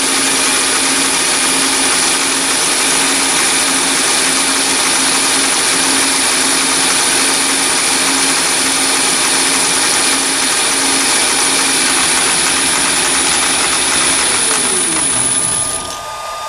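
Chinese mini lathe driven by a three-phase 1 HP motor on a variable frequency drive, turning a steel bar under cut: a loud steady running noise with a constant high whine. Near the end the motor winds down, its pitch falling, and the whine stops.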